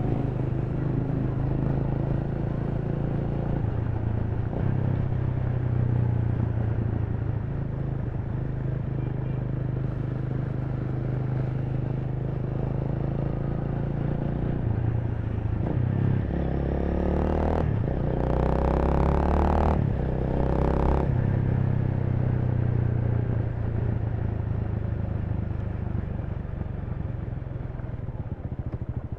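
Honda Rebel 300's single-cylinder engine running in city riding, its note holding fairly steady with a few shifts in pitch. About two-thirds of the way in, a few seconds of loud hissing noise rise over it, then die away.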